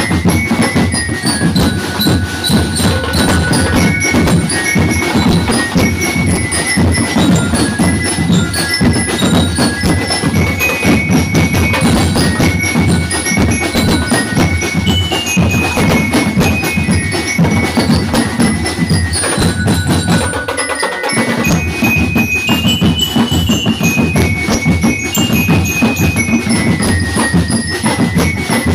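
Drum and lyre band playing: metal-barred bell lyres ring out a stepping melody over steady, rapid snare and bass drumming. The drums drop out for a moment about two-thirds of the way through, then come back in.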